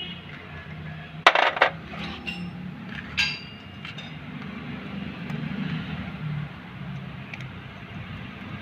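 Metal clicks and a short ringing clink as a flat screwdriver pries and pulls retaining clips out of a power steering pump: two quick sharp clicks about a second in, then a ringing clink about three seconds in, over a steady low hum.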